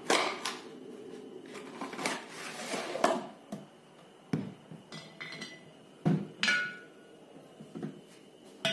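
A cardboard whisky box being handled and a glass bottle slid out of it and stood on a table: a string of separate knocks and rustles, with a short ringing glass clink about six and a half seconds in.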